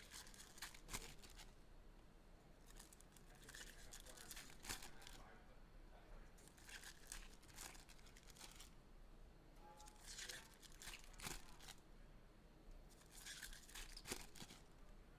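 Faint tearing and crinkling of foil trading card pack wrappers being ripped open, coming in several short scratchy spells.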